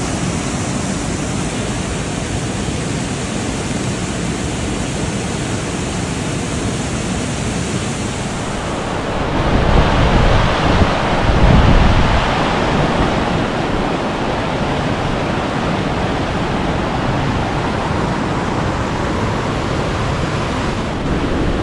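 Steady rush of a waterfall, growing louder for a few seconds about halfway through, with a low rumble.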